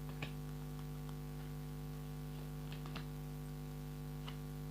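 Steady electrical mains hum on the recording, with a few faint, light clicks scattered through it.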